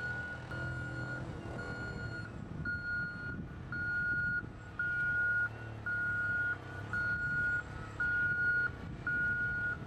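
A vehicle's reversing beeper sounding about once a second, ten beeps in all, each held for most of a second at one steady high pitch, over the low rumble of the vehicle running.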